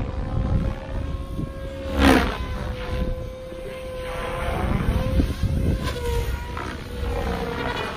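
SAB Goblin Black Thunder RC helicopter flying aerobatics: its electric motor and gear whine holds a steady pitch that dips slightly near six seconds, over the whoosh of the rotor blades. A loud blade whoosh comes about two seconds in.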